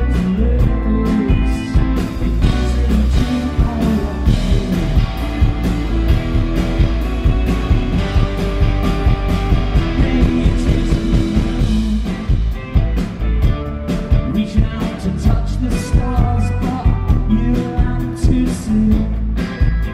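Live rock band playing through a PA: electric guitar, drum kit and keyboard, with a male lead vocal.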